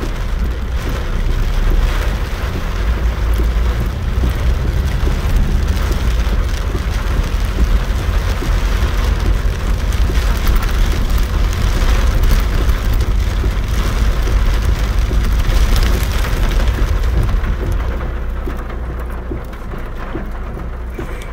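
Torrential rain beating on a car's roof and windscreen, heard from inside the moving car, over a steady low rumble from the engine and the dirt road. The rain eases a little near the end.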